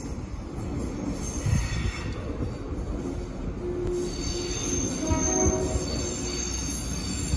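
Rail multi-purpose vehicle (MPV) approaching slowly round a curve, a low rumble under the squeal of its wheels. The thin, high squealing gets stronger from about halfway through.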